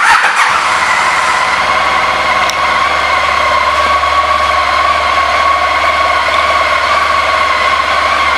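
2006 Honda ST1300's 1261 cc V4 engine starting up and settling within about a second into a steady idle, with a steady whining tone over the low engine pulse.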